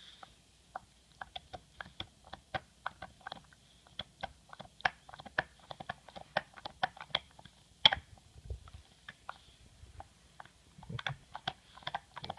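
English Bulldog chewing a bone: a quick, irregular run of sharp clicks and crunches as his teeth work on it, with the loudest crack about eight seconds in.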